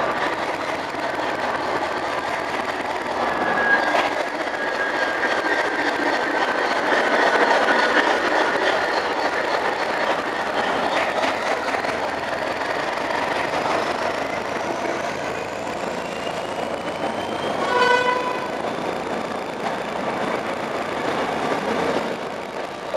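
Northern Ireland Railways CAF C3000 diesel multiple unit running past close by along a curved platform, with steady engine and wheel noise and a thin wheel squeal. A short horn blast sounds about eighteen seconds in.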